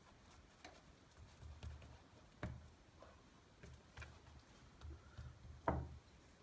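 Faint soft thuds of hands pressing and patting paratha dough on a floured countertop, with a few sharp clicks, the loudest about two and a half seconds in and again near the end.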